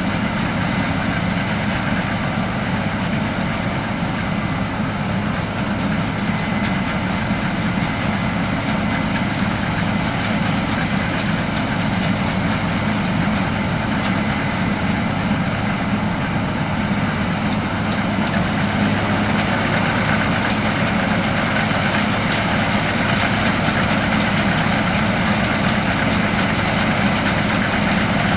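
Combine harvester at work in a grain field, its engine and threshing machinery making a steady heavy drone with a deep hum underneath, joined by the engine of the tractor running alongside. It grows slightly louder in the second half.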